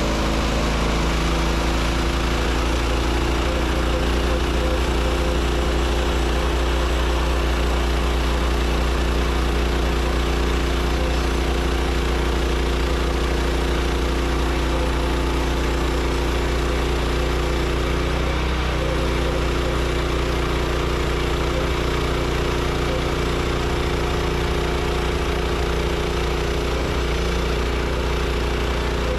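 Woodland Mills HM126 portable band sawmill's gasoline engine running at a steady speed, just after being started.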